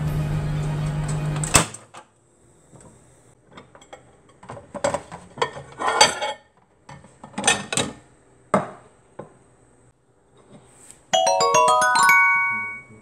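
A steady hum cuts off suddenly about a second and a half in. Knocks and clatter follow as a plate of food is slid out of a microwave oven and handled. Near the end comes a short jingle of quick stepped mallet notes, like a xylophone.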